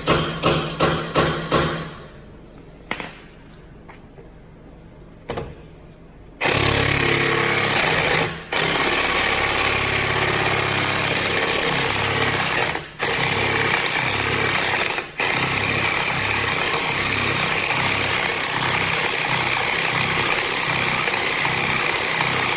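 A power impact wrench hammering at a lock lug nut on a wheel stud to break it loose. A quick series of sharp bangs opens, then from about six seconds in comes a long, loud, continuous run of hammering, broken by three short pauses.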